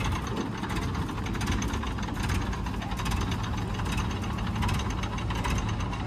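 Diesel engine of heavy construction machinery running steadily with a fast, even clatter.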